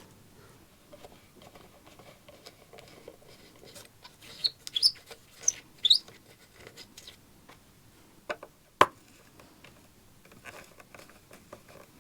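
Hands handling and tugging at an antique automaton figure to free it from its base. Light clicks and rustles run throughout, with a few short high squeaks around five to six seconds in and a sharp knock at about nine seconds.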